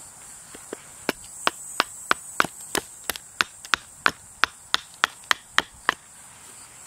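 Small carving hatchet chopping into a wooden spoon blank, roughing out its shape: about sixteen quick, even strokes, roughly three a second, stopping shortly before the end.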